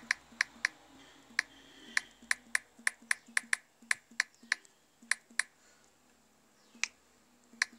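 Typing on a smartphone's on-screen keyboard: about twenty short, sharp key-press clicks at an uneven typing pace, one per letter, with a pause of a second or so near the end before two last taps.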